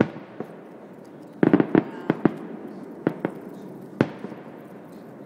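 Aerial fireworks shells bursting about three-quarters of a mile away: a boom at the start, a quick cluster of several reports about a second and a half in, then a few scattered single booms, each trailing off in a short echo.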